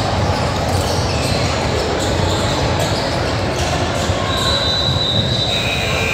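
Basketball game sound in a large hall: a ball bouncing several times and high sneaker squeaks in the second half, over a steady hum of the crowd.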